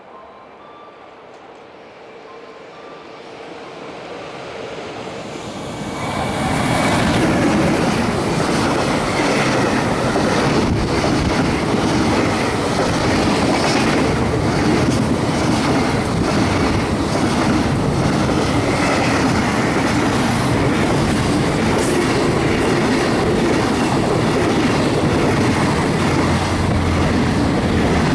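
Freight train, an EF210 electric locomotive hauling container wagons, approaching and running through the station. The sound builds steadily for about six seconds, then the wagons rush past with a loud, steady rumble and clatter of wheels on the rails. A low hum joins near the end.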